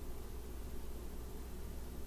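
Room tone: a steady low hum with an even hiss underneath.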